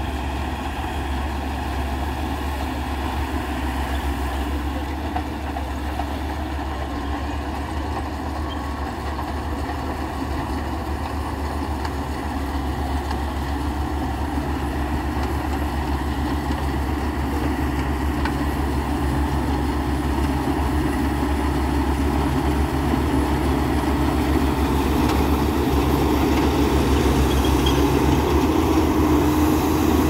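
Tracked rice combine harvester running steadily as it cuts standing paddy, growing gradually louder as it comes closer.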